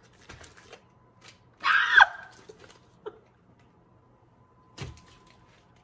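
A woman's short, high-pitched squeal of delight about two seconds in, bending down in pitch at the end. Faint rustling comes before it, and a soft thump follows near the end.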